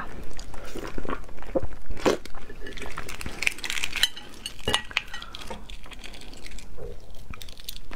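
Fingers peeling the shell off a boiled fertilized egg (huozhuzi): irregular crisp cracks and clicks as pieces of eggshell break and come away.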